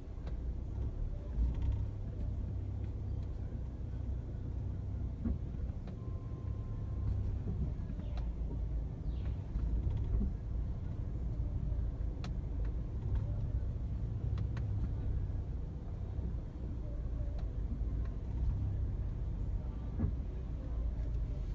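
Volkswagen Passat B8 running in reverse with a steady low rumble and vibration, with scattered short clicks and knocks. It is an unidentified noise that appears when reversing, along with the engine vibrating.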